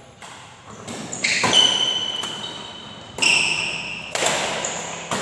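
Badminton rackets striking the shuttlecock during a doubles rally: a series of sharp pinging hits about once a second, each ringing on with echo in the large hall.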